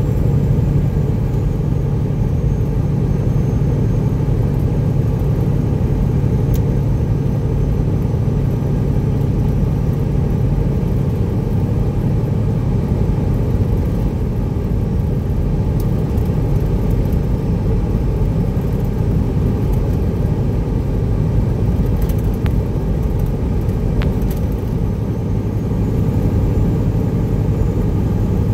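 Straight-piped Detroit Diesel Series 60 inline-six diesel of a 1999 Peterbilt 379 pulling under load up a long highway grade, heard from inside the cab. It is a steady low drone whose pitch drops a little about halfway through.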